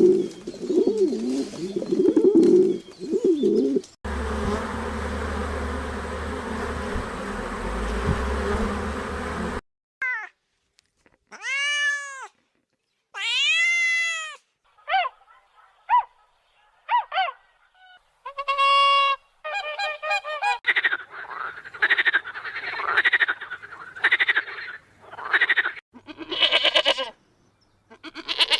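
Animal calls from several recordings in turn: low growling at first, then a steady noisy stretch, then a string of short calls that rise and fall in pitch with gaps between them, and a dense run of calls near the end.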